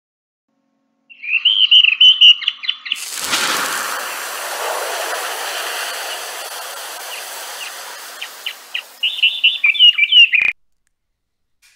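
Bird song in quick chirping phrases, then a long hissing sweep that starts suddenly about three seconds in and slowly fades, then more chirping that cuts off abruptly near the end.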